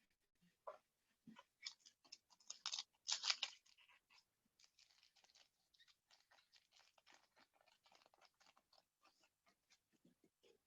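Trading-card pack wrapper crinkling as it is torn open, loudest in the first few seconds, then a softer patter of small clicks as the cards are handled.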